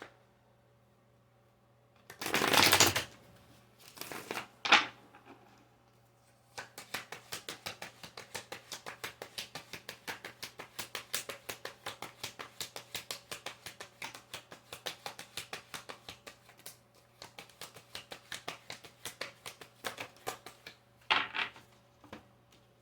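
A deck of tarot cards being shuffled by hand: a loud sweep of cards about two seconds in, then a long run of rapid, even clicks, several a second, as cards are flicked through, with a short sweep near the end.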